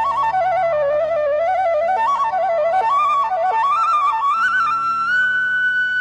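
Background music: a flute-like melody moving in small steps over a low sustained accompaniment, settling on one long held high note about five seconds in.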